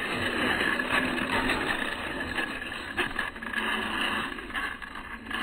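A 1/16-scale RC rock bouncer's electric motor and drivetrain running as it crawls over rough ground, with a few sharp knocks from the chassis and tyres hitting the ground.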